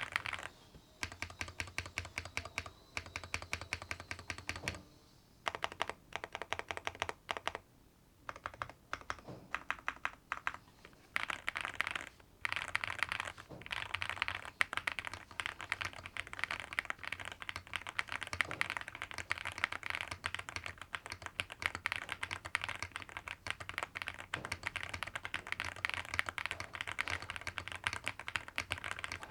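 Typing on a Monsgeek M1 V5 mechanical keyboard: rapid key clicks in short runs with brief pauses, then fast continuous typing.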